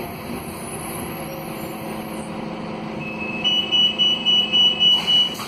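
Scania K280UB bus's DC09 diesel engine running steadily, heard from inside the cabin. About three seconds in, a high electronic beeper sounds a run of quick beeps, about three or four a second, for under two seconds, with a click near the end.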